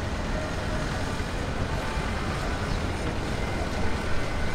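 Steady roar of a twin-engine widebody airliner's jet engines as it rolls down the runway.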